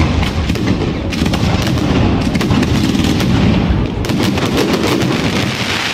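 Fireworks display going off in a dense barrage: many rapid sharp bangs and crackles over a continuous low rumble.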